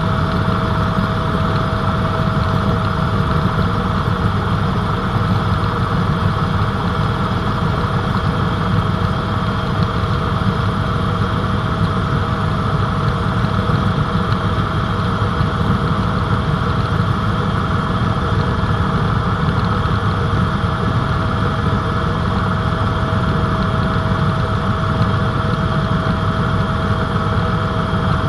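Helicopter in steady flight: continuous engine and rotor noise with a constant whine held at one pitch throughout.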